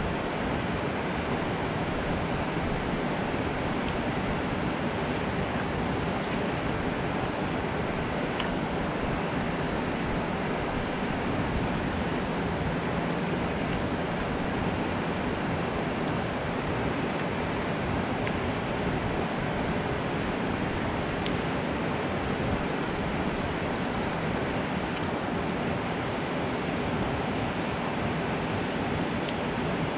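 Water pouring down a concrete dam spillway into the river below: a steady, even rush of white water.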